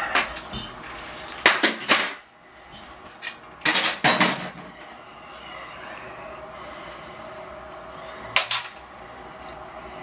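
Metal tools and small parts clinking and clattering as they are handled, in three short bursts: about one and a half seconds in, around four seconds in, and once more near the end.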